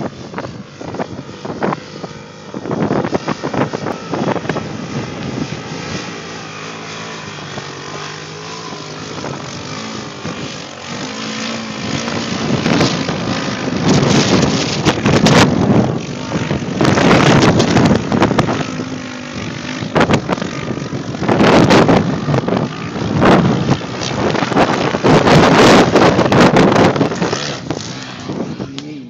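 Quad (ATV) engine revving hard on a sand dune, its pitch rising and falling with the throttle, and growing louder in surges in the second half as it comes close. Wind buffets the microphone.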